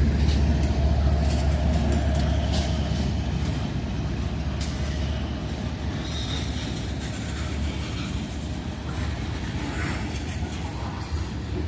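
CSX freight train's cars rolling past, with scattered wheel clicks over the rails and a low rumble that slowly fades.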